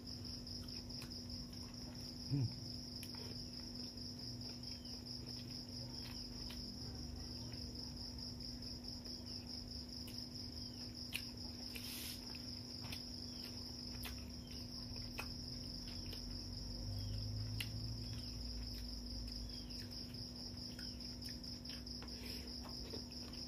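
Steady, rapidly pulsing high insect chirring over a low steady hum, with faint clicks and smacks of fingers working rice and food, and a brief knock about two seconds in.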